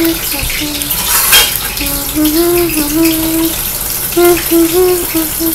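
Steady rush of running water, with a voice humming short and held notes over it.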